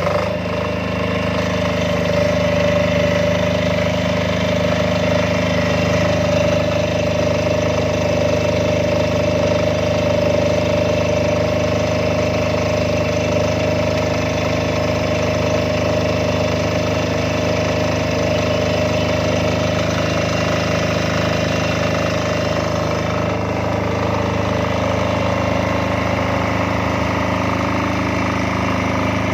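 Supra XTD7700 silent-type diesel generator set running steadily at a constant speed after starting, with an even engine note and a steady whine.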